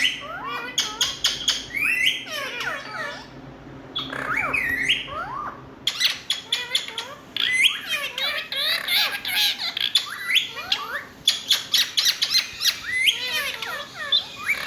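Indian ringneck parakeet squawking and chattering: a fast run of short, shrill calls that sweep up and down in pitch.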